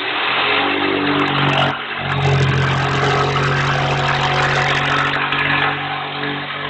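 Electric jigsaw starting up abruptly and plunge-cutting into a 3/8-inch (9.5 mm) plywood panel, the motor running steadily with a brief dip about two seconds in.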